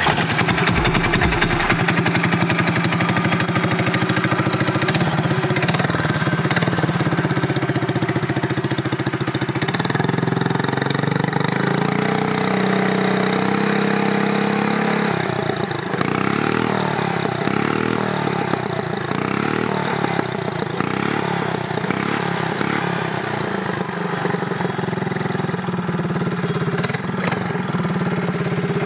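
TrailMaster MB200 mini bike's single-cylinder 196cc four-stroke engine running through an aftermarket Super Pipe header exhaust with a baffled muffler. It runs steadily, is held at higher revs from about ten to fifteen seconds in, then is blipped on the throttle several times, about once a second, before settling back.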